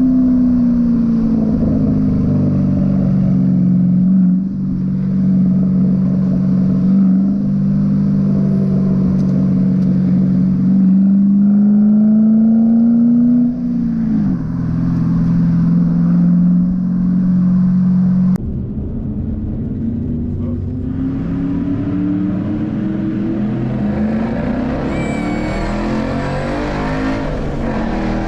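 2012 Ford Boss 302 Mustang's V8 running under way at steady revs, its exhaust note holding nearly one pitch with a brief dip partway through. About two-thirds in the sound suddenly gets quieter, then the engine note climbs steadily as the car accelerates.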